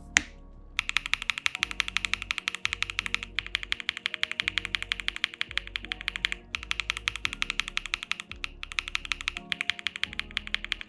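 Rapid typing on a mechanical keyboard with Gateron Smoothie long-pole linear switches: fast, clacky keystrokes in runs broken by a few short pauses. Soft background music plays underneath.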